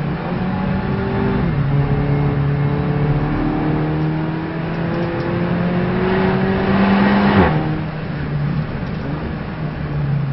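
Race car engine under load: it shifts up about a second and a half in, pulls slowly rising in pitch through the gear, then the throttle comes off sharply about seven seconds in.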